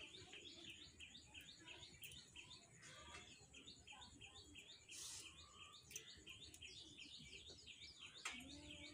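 Faint bird song: a rapid run of repeated high chirps, about five a second, pausing briefly now and then. A few faint clicks are heard as cluster beans are snapped by hand.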